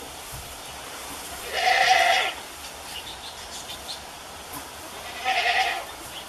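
A doe goat in labor bleating twice, two loud drawn-out calls a few seconds apart.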